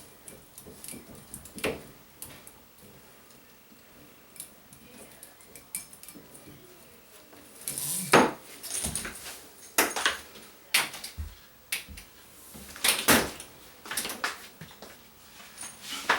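Metal clinks and clicks of a shower hose and its fittings being handled and attached. They are sparse and faint at first, then louder and more frequent from about halfway through.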